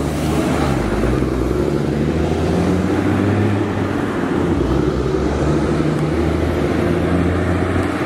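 Street traffic noise dominated by a motor vehicle engine running close by, a steady low-pitched hum.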